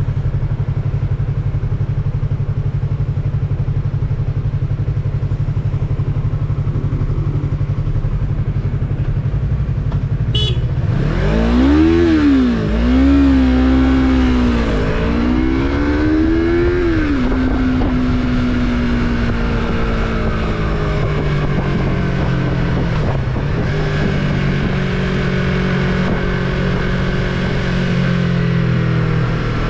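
Yamaha MT-03's parallel-twin engine running at a steady low speed, then a sharp click about ten seconds in. It pulls away with the revs rising and falling several times through gear changes, then settles into steady running.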